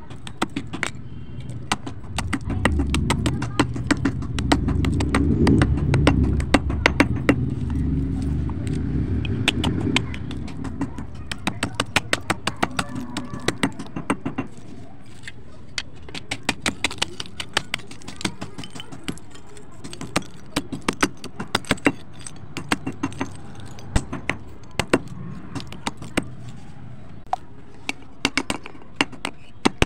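Dry clay crunching and cracking under a heavy stone pestle pounding it on a stone base, a long run of sharp cracks and crumbling clicks. Over roughly the first ten seconds a low rumble runs underneath the cracks, then it drops away.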